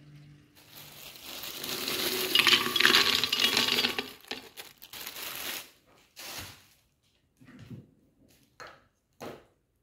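Frozen strawberries tipped from a plastic bag into a blender jug: the bag crinkles and the hard frozen berries clatter against the jug, loudest about two to four seconds in. A few short, separate knocks and rustles follow as the bag is emptied and put aside.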